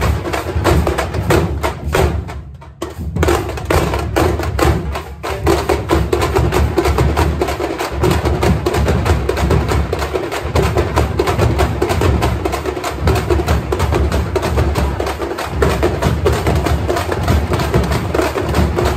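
Troupe of Tamil thappu frame drums beaten with sticks in a fast, dense festival rhythm, backed by large barrel drums. The drumming breaks off briefly about two and a half seconds in, then comes back.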